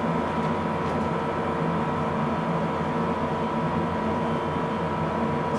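Steady machine hum with a few faint fixed tones, unchanging throughout.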